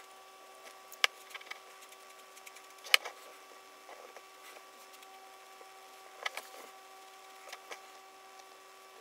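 A few sharp clicks over a steady faint electrical-sounding hum: one about a second in, the loudest about three seconds in, and another about six seconds in, with smaller ticks in between.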